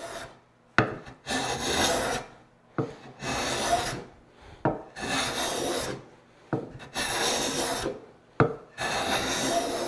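Hand smoothing plane with a freshly sharpened iron cutting end grain across the end of a hardwood cutting board. There are five strokes about two seconds apart, each starting with a sharp click as the plane meets the wood and followed by about a second of hissing cut.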